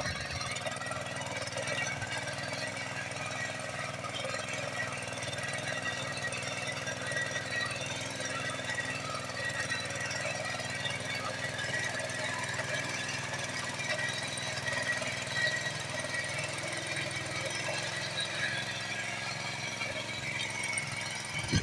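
Small petrol engine of a homemade walk-behind mini tractor running steadily under load as the machine tills a furrow through soil.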